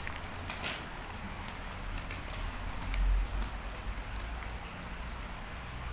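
Wet pattering and slapping of live tilapia flopping in a nylon cast net on wet river stones as the net is handled, with a dull low thump about halfway through.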